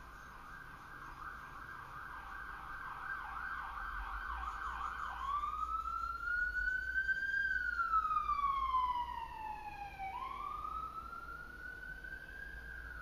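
Emergency vehicle siren: a fast warbling yelp for about the first five seconds, then a slow wail that rises, falls and rises again. It grows louder toward the middle and then fades.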